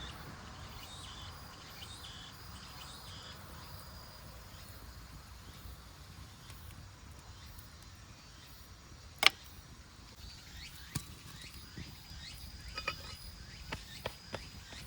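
Quiet outdoor ambience with a steady high insect trill, broken by one sharp click about nine seconds in, another about two seconds later, and a run of lighter clicks and clinks near the end.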